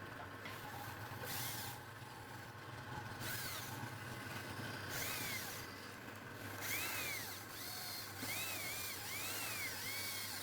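Wood lathe running with a steady motor hum, with bursts of hiss from a tool working the spinning wood. From about halfway through there are repeated short high chirps.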